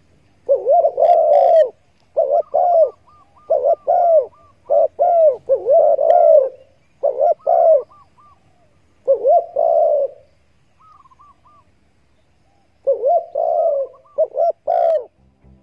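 Spotted dove calling: repeated short phrases of low coos in quick succession. A pause of about two and a half seconds past the middle holds only a few faint higher notes, then the cooing resumes.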